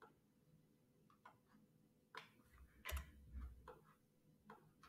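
Faint, irregular clicks from working a computer, about eight scattered over a few seconds, with a soft low thump about three seconds in; otherwise near silence.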